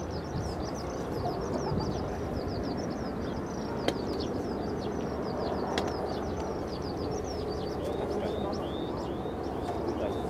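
A bird chirping over and over in short, quick, high notes, about three or four a second, with the notes turning to arched calls near the end, over a steady low rumble of airport noise. Two sharp clicks stand out about four and six seconds in.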